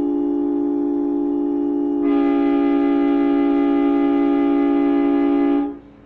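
Compressed-air train horn blowing one long, steady chord of several notes. About two seconds in it gets louder and brighter, then it cuts off sharply near the end.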